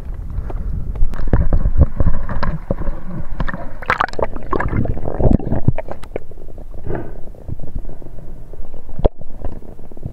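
Underwater sound picked up through an action camera's waterproof housing: muffled sloshing and gurgling water, with many irregular clicks and knocks that are thickest around the middle.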